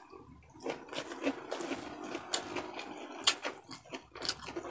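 Close-up mouth sounds of someone chewing a mouthful of fried frog meat and rice: many short wet clicks and smacks at an irregular pace.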